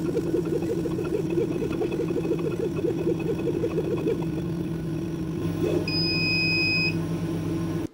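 Laser cutter at work on 2 mm acrylic: the head's motors run with a fast pulsing hum as it traces the tight spring curves on low-power passes, settling to a steady machine hum about five seconds in. A single high beep lasting about a second near the end.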